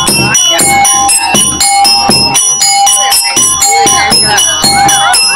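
Upbeat background music with chiming bell tones over a quick, steady beat.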